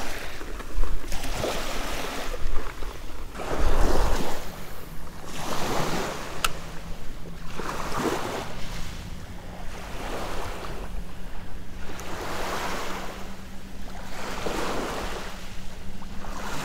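Small waves lapping and washing onto a shell-and-pebble shoreline, one swell every couple of seconds, with wind buffeting the microphone.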